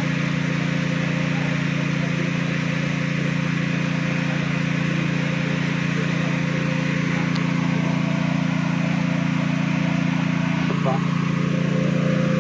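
A tractor engine running steadily with a constant low hum and hiss, driving the pump of a tractor-mounted sprayer.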